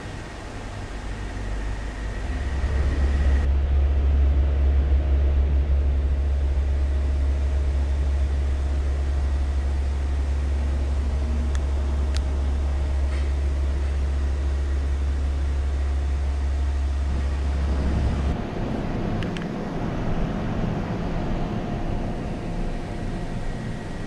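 A loud, steady low rumble that starts about two seconds in and cuts off abruptly about eighteen seconds in, leaving a fainter low hum.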